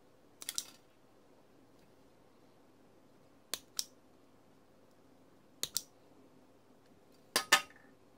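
Self-adjusting wire stripper clamping and releasing on a red wire, four times, each a quick double snap, the last the loudest.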